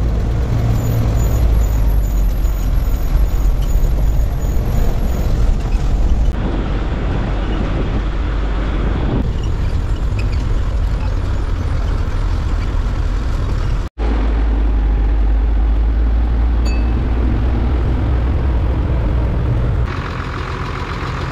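Bus engine running and road noise from a moving bus, in several clips cut together, with a brief dropout in the middle. The sound changes near the end, turning quieter and lighter.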